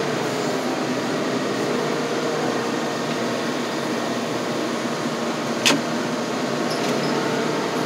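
Engine of a wheel loader running steadily, heard from inside its cab while the machine moves, a steady hum with a few low tones. One sharp click a little after halfway.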